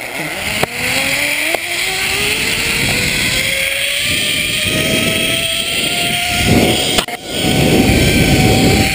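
Zipline trolley's pulley wheels running along a steel cable: a whine that rises slowly in pitch as the rider picks up speed, then holds steady, over wind rushing on the microphone. A few sharp knocks, the loudest about seven seconds in.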